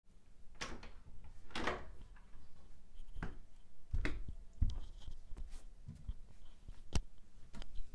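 Scattered knocks, thumps and rustles of someone moving about and handling things close to the microphone, about half a dozen in all, the sharpest a bit before the end.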